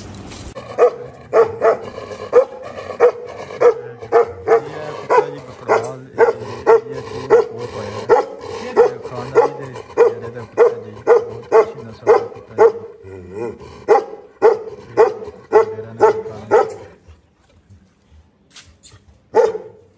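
A dog barking in a steady run, about one and a half barks a second, for some sixteen seconds. It stops a few seconds before the end, then barks twice more.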